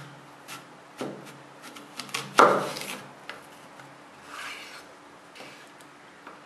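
Kitchen knife slicing an apple on a wooden cutting board: a few sharp knocks of the blade on the board, and a louder crisp cut about two and a half seconds in, then softer scraping strokes.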